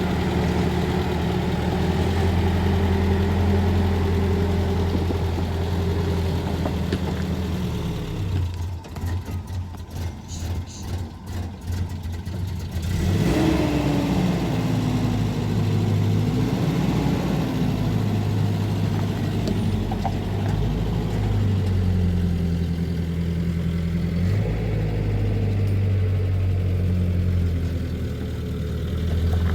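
A vehicle engine running steadily, its sound turning choppy and uneven for a few seconds about eight seconds in before settling back to a steady hum.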